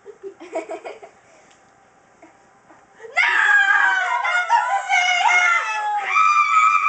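Several girls screaming in high voices, breaking out suddenly about three seconds in, with one long held scream near the end.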